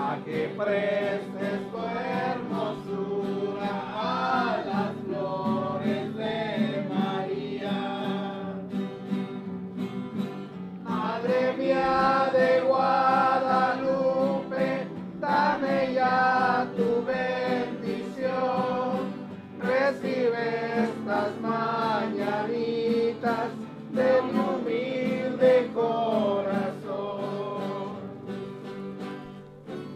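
Several voices singing a song together, accompanied by guitar.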